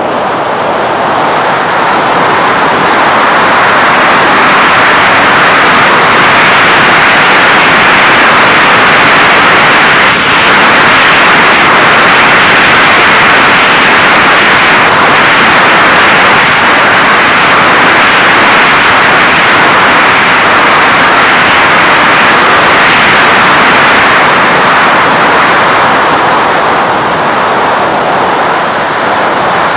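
A loud, steady rush of airflow and electric motor noise picked up by a camera riding on an FPV Raptor RC plane in flight. It eases slightly at the start and again near the end.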